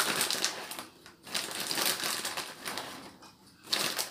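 Plastic packet crinkling and rustling as it is squeezed and shaken to tip grated cheese into a saucepan, in crackly stretches with short pauses about a second in and near three seconds.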